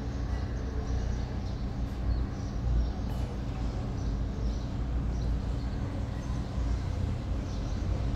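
Steady low background rumble with a constant hum, and faint high chirps now and then.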